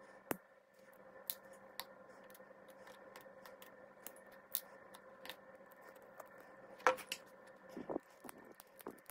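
Small metal clicks and taps of tweezers and lock parts while an old five-pin Yale pin-tumbler cylinder is taken apart, over a faint steady hum. The loudest click comes about seven seconds in, followed by a few duller knocks.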